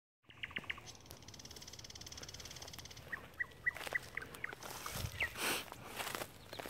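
Thrush nightingale singing. A few deep repeated notes lead into a fast, dry rattle, then separate clear whistled notes. A short rushing noise comes about five seconds in.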